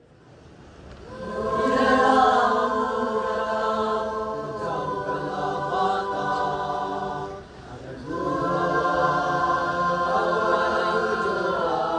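Choir-like music of long held chords, fading in at the start and sung in two long phrases with a short dip between them.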